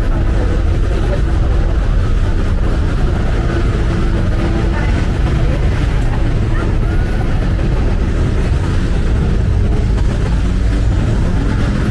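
Steady, loud city road traffic noise.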